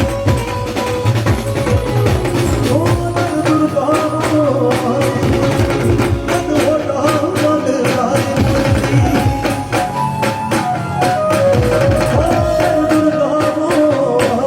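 Live Indian folk music: a wavering melody line over fast, steady hand percussion.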